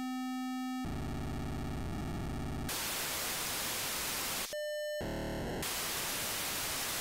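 POCSAG pager transmissions demodulated by a narrowband FM software radio receiver. A 512-baud page opens with a steady low square-wave tone (its preamble) and turns into a buzzing data burst lasting about two seconds, then gives way to open-squelch static hiss. About four and a half seconds in, a shorter 1200-baud page follows: a briefly held, higher tone, then a quick buzz, then hiss again.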